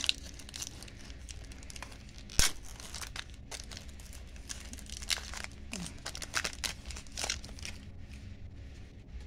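Foil wrapper of a baseball card pack crinkling and tearing as it is opened by hand, with one sharp rip about two and a half seconds in.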